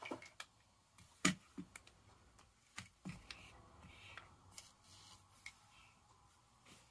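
Irregular light clicks and knocks of a Sig Sauer P365 air pistol being handled and set down on a rubber gun mat, the sharpest knock about a second in.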